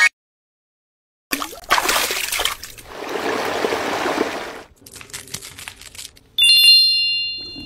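Added sound effects over a silent painting scene: a rushing, water-like noise that starts abruptly about a second in and lasts about three seconds, a little faint crackling, then a bright chime ringing out near the end.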